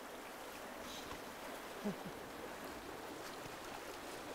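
Fast river water rushing steadily, with one brief low thump about two seconds in.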